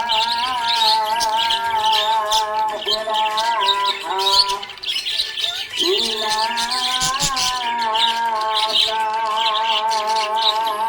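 Small pet parrots chirping and squawking rapidly and continuously, over a sustained background melody that drops out briefly a little past the middle.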